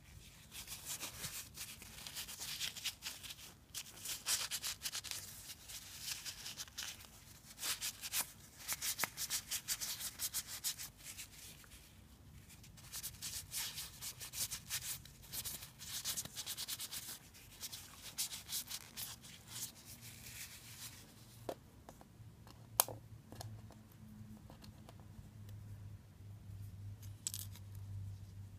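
Paper tissue rubbing over the body housing of a Shimano spinning reel as it is wiped clean, in quick scratchy strokes that stop about two-thirds of the way through. A few sharp clicks follow, one louder than the rest.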